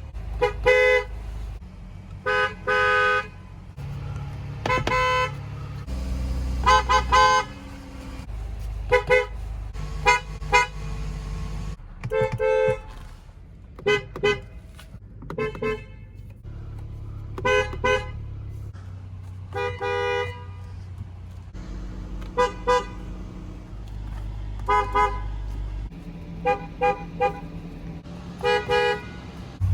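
Car horns from one car after another, each honked in short taps, often two or three in quick succession. Beneath the honks, a low engine and road rumble changes every couple of seconds as one car gives way to the next.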